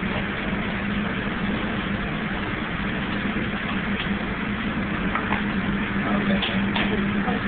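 Steady drone of commercial kitchen machinery: an even rush of noise over a low, constant hum. A few light clicks of utensils or dishes come through in the second half.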